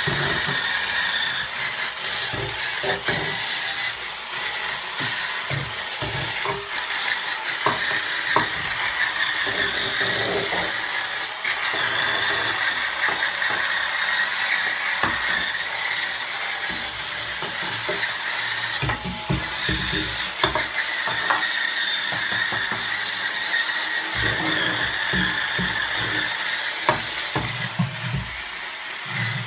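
Hurricane Spin Scrubber's battery motor whirring steadily as its small pointed corner brush spins against chrome bath taps, with frequent scattered clicks and knocks as the head bumps the fittings.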